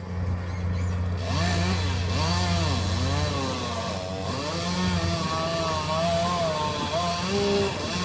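Chainsaw running and cutting, its pitch repeatedly rising and falling as the engine works under load, starting about a second in and stopping near the end. A steady low engine drone runs underneath throughout.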